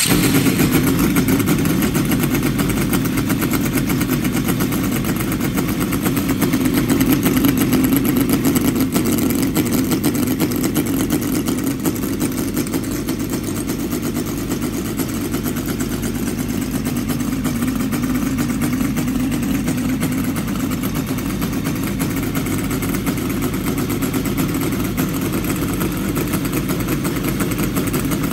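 HL VX-800 scale model V8 petrol engine running steadily, loud and even throughout.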